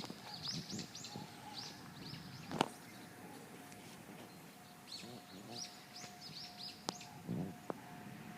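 Small birds chirping in quick runs of short high calls, one bout at the start and another about five seconds in, with a few sharp clicks or taps in between.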